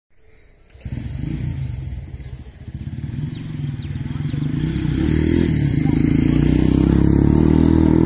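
A small engine, such as a motorcycle's, running close by with a low, rapid pulse. It starts about a second in and grows louder.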